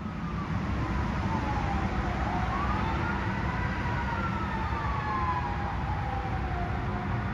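Distant emergency-vehicle siren wailing slowly up and down over a steady low rumble of traffic, fading in at the start.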